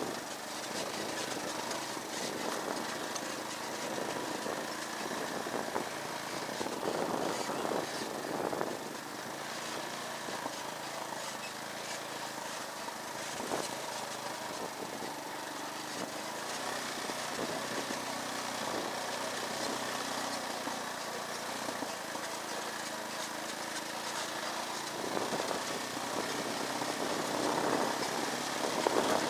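Small motorcycle engine running steadily while being ridden, growing louder briefly about seven seconds in and again near the end.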